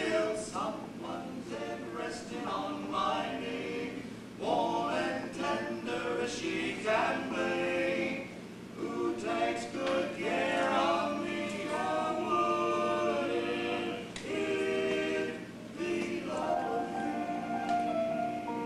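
Male vocal quartet singing a cappella in sung phrases of held chords, with a long chord sustained near the end.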